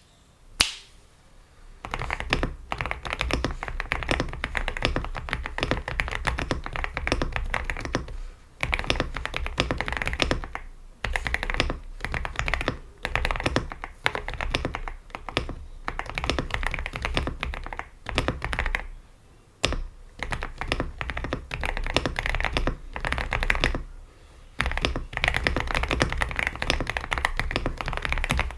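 Mechanical keyboard fitted with Gateron Oil King linear switches being typed on fast and steadily, in runs broken by brief pauses. A single sharp click comes about half a second in, before the typing starts.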